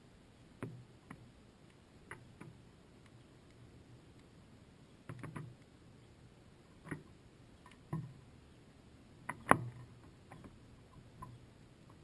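Scattered clicks and soft knocks on a seed-filled bird feeder, coming irregularly with the loudest about two-thirds of the way through, as house sparrows land and move about on it.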